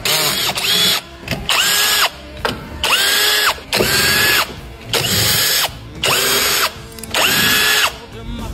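Electric power tool, such as a cordless drill or driver, run in about seven short bursts. Each run climbs in pitch as the motor spins up, holds steady, then drops as it stops.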